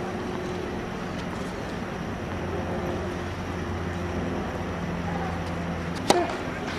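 Steady background noise with a low hum, then about six seconds in a single sharp crack of a tennis racket striking the ball on a serve.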